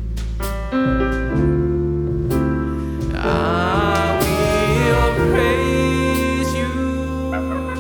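Live jazz-flavoured gospel band playing an instrumental passage: piano chords, double bass and drums with cymbal strikes, and a horn line with vibrato coming in about three seconds in.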